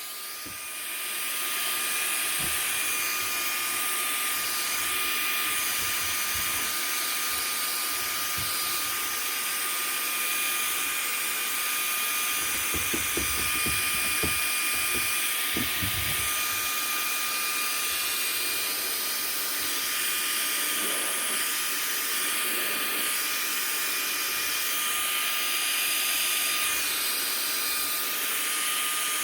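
Vacuum cleaner running steadily with a high whine, coming up to full level in the first second or two. A cluster of low knocks and bumps about halfway through.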